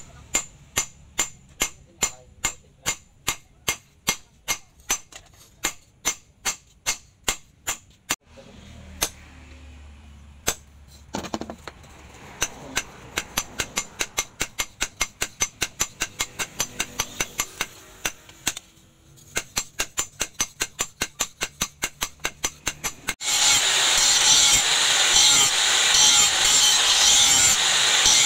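Hand hammer striking a red-hot knife blade on a steel anvil block: a run of ringing blows about three a second, thinning out around eight to twelve seconds in and then picking up again. About 23 seconds in, an angle grinder takes over, grinding the forged blade with a loud, steady noise.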